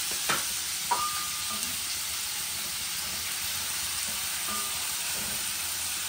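Pounded garlic, shallots and ginger sizzling in plenty of hot oil, with a steady hiss as they fry toward golden. A utensil knocks against the pan twice in the first second, leaving a brief metallic ring.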